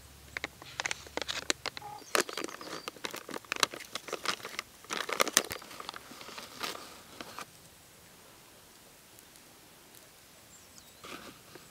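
Plastic packet of Dasida beef seasoning powder crinkling as it is handled, in a quick run of sharp crackles that dies down after about seven seconds, with a few more near the end.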